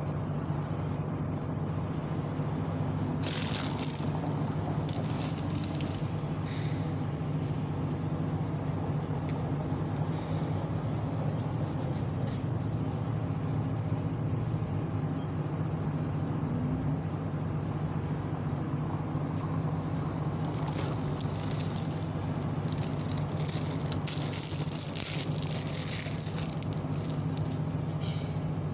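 A steady low mechanical hum runs throughout. In the last several seconds come light crinkling and clicks from dressing packets and wrap being handled with gloved hands.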